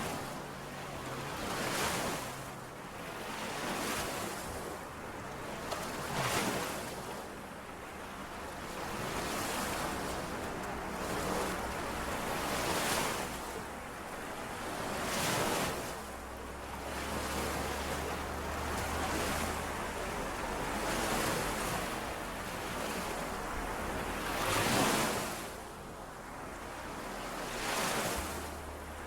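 Small lake waves washing in and out on the shore, a swell of water noise about every two seconds.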